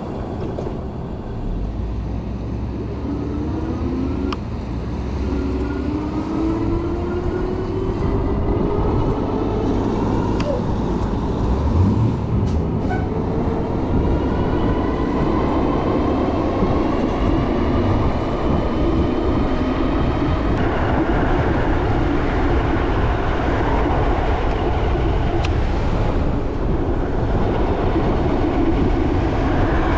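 Electric hub motor of a Juiced HyperScrambler 2 e-bike whining under power, the whine climbing in pitch several times as the bike speeds up. A steady rushing noise runs beneath it.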